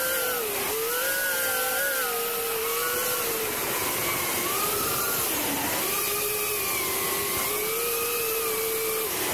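FPV quadcopter's motors and propellers whining, one tone wavering up and down in pitch with the throttle, over a steady hiss.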